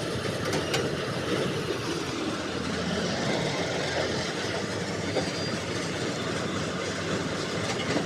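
Kartar 4000 combine harvester running up close: a steady mechanical din of engine and rattling machinery.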